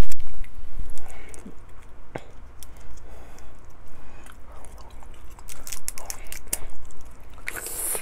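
Eating snow crab with the fingers: small wet clicks and crackles as meat is pulled from the shell, and chewing, with a brief louder noisy burst near the end.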